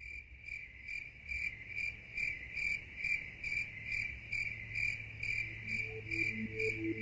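Cricket chirping in an even rhythm, about two to three chirps a second, over a low hum. Soft, low synthesizer notes come in near the end.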